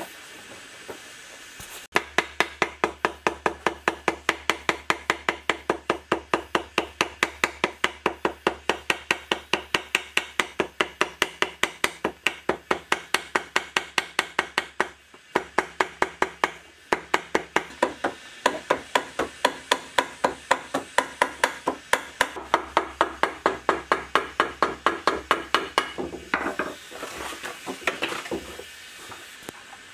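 Rapid, evenly spaced hammer blows, about three a second, with a steady low hum under them. They pause briefly twice in the middle and stop a few seconds before the end.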